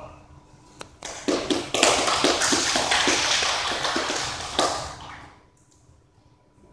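Applause from a small audience, with one person clapping close by. It starts about a second in, holds for about three seconds, then dies away.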